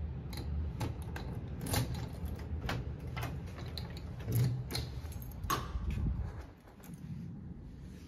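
Keys jingling and a key being worked in a front-door lock, a run of sharp metallic clicks as the lock is turned, dying away near the end.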